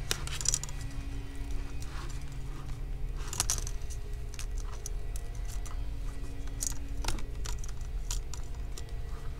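Thin pry tool scraping and clicking along the edge of a laptop display bezel as the bezel is eased off its double-sided tape and clips: scattered small clicks, with sharper ones about half a second, three and a half and seven seconds in. A steady low hum underneath.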